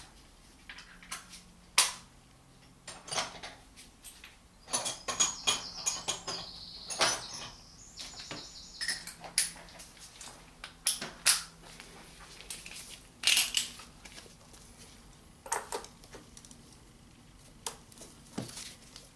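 Metal hand tools clinking and clicking, a socket and ratchet being handled. There is a stretch of fast high ticking about five to eight seconds in.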